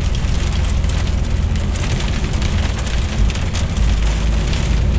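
Inside the cab of a DAF truck driving on a wet, snow-covered motorway: steady engine drone and tyre noise, with wet snow and rain hitting the windscreen.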